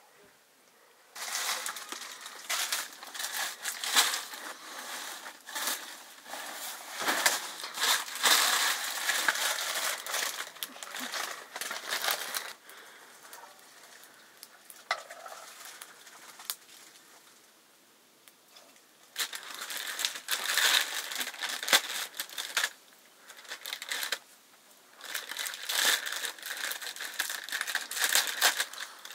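Crinkling and crunching of something being crushed and handled by hand, coming in bursts of several seconds with quieter pauses between.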